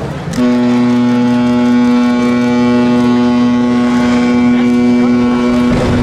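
Ship's horn sounding one long, steady blast for a ship launch, starting about half a second in. Near the end, a low rush of water comes in under it as the hull hits the canal.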